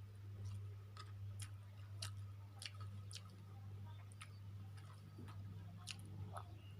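Someone chewing chicken chow mein with the mouth close to the microphone, with sharp wet mouth clicks coming irregularly about once or twice a second. A steady low hum runs underneath.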